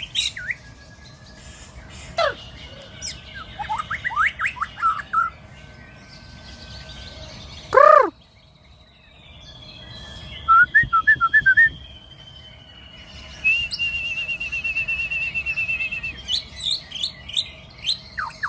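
White-rumped shama (murai) singing warm-up phrases before full song: a varied run of clear whistles, chirps and short trills. About eight seconds in comes one loud downward-sweeping call, and later a long rapid warbling trill. A faint steady high tone runs behind.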